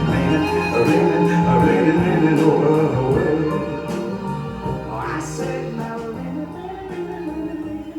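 Slow soul ballad with a male singer and band, fading out at the end of the song.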